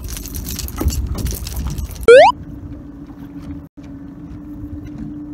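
Wind and water noise aboard a boat, with light clicking, while a hooked gizzard shad dangles from a lure's treble hook. About two seconds in, a loud short rising tone cuts in: an editing sound effect. After it the outdoor noise gives way to a steady low hum.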